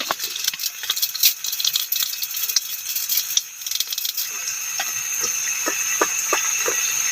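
Maggi instant noodles being added to a pan of fried onion and tomato, with a clatter and crackle of packet and noodles. From about four seconds in, a steady hiss with scattered small pops as the food cooks.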